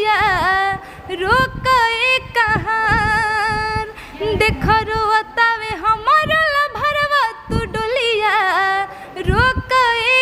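A young woman singing a Bhojpuri song without accompaniment, in long phrases with sliding, ornamented notes and short breaths between them.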